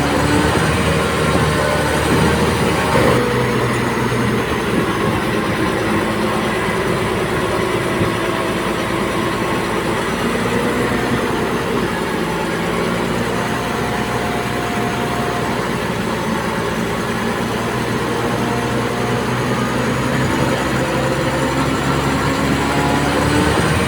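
Diesel engine of a Komatsu D58P crawler bulldozer running as the machine works, its pitch drifting up and down, with the steel crawler tracks running underneath.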